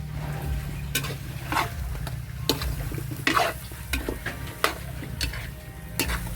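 Pork and vegetables sizzling in a wok while being stir-fried, with a utensil scraping and tossing against the pan about six times at uneven intervals.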